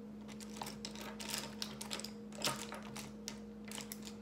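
Irregular small clicks and taps as lipstick is put on the lips and the tube is handled, over a steady low electrical hum.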